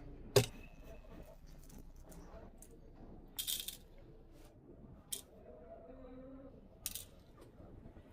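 Scattered clicks and taps of small tools and phone parts being handled during a smartphone teardown: a sharp click about half a second in, a short clatter about three and a half seconds in, and single clicks near five and seven seconds.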